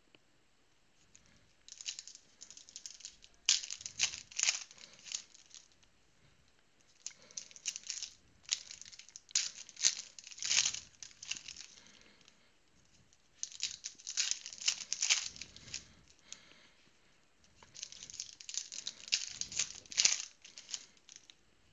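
Trading-card pack wrappers being crinkled and torn open in four spells of a few seconds each, with short quiet gaps between.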